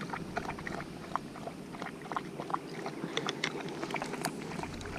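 A dog drinking water, lapping with a quick, irregular run of wet clicks.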